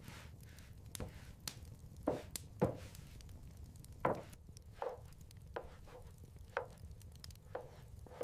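Chopping with a blade on a board: about ten knocks at uneven intervals, each with a short ring.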